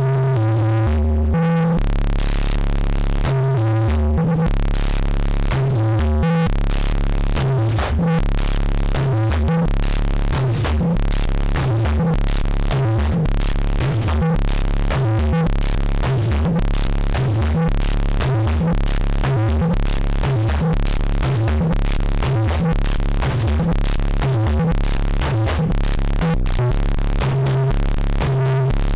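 Eurorack modular synthesizer playing a sequenced pattern: stepping bass notes over a steady low drone, with electronic percussion clicks keeping time. The pattern is sparse at first and gets busier and denser after about seven seconds.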